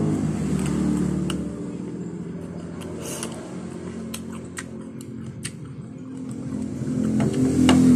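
Close-up chewing of soft, ripe papaya with scattered wet mouth clicks, over the steady hum of an engine running in the background, which dips in the middle and swells again near the end.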